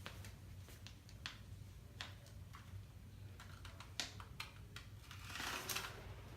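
Faint scattered light clicks and taps, with a short rustle just past five seconds in, over a low steady hum.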